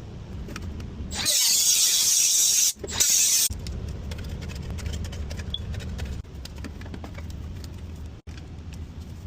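Tape being pulled off its roll in two loud ripping pulls, about a second in and again near the three-second mark, to seal the dryer vent pipe joints. A steady low hum and a few faint clicks run underneath.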